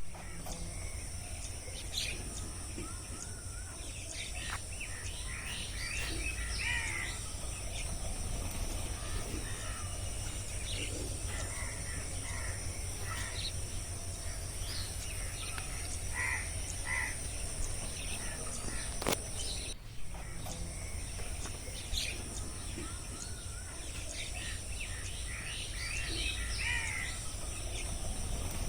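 Forest ambience: many scattered bird chirps and calls over a steady high-pitched drone and a low rumble. The drone cuts out for a moment about two-thirds of the way through, and a single sharp click comes just before that.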